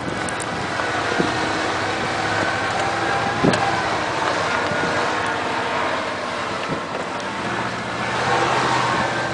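A truck engine running steadily, a broad rumble with faint steady engine tones, and a single short knock about three and a half seconds in.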